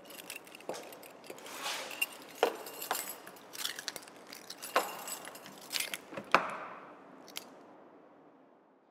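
A bunch of keys jangling and clinking in someone's hands, with irregular sharp clicks, as they fumble for a car key. The sound fades out near the end.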